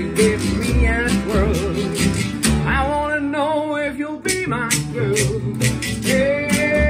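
Small acoustic band playing a country-style song: male lead vocals with wavering held notes over strummed acoustic guitars and plucked upright double bass. A washboard-style ridged tie, scraped by hand, keeps a steady rhythm.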